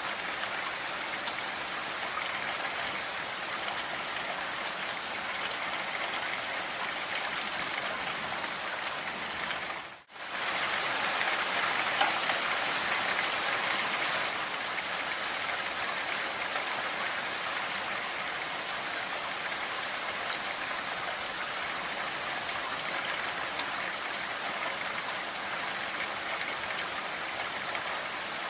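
Steady rain falling, an even hiss of many drops. About ten seconds in it cuts out for a moment, then comes back a little louder for a few seconds before settling.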